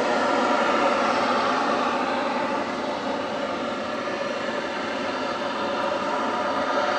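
A loud, steady drone in the sky: an even rushing noise with many held tones layered in it, dipping slightly midway. Those who heard it found it strange and could not place it, wondering whether it came from a mosque loudspeaker or from the sky itself.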